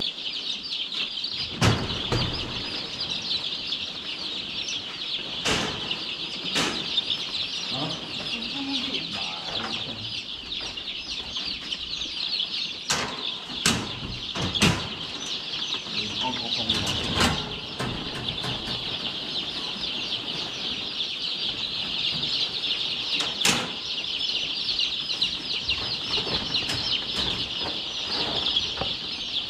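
A large flock of 8-day-old pullet chicks in cages peeping together in a dense, steady high chorus, with occasional sharp knocks among it.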